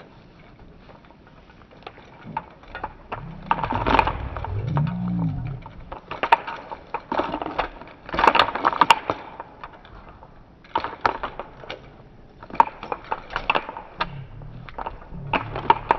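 Gray wolf held on a catch pole, giving low growls about four seconds in and again near the end. Between them comes a run of clattering and scraping as it bites and thrashes against the pole.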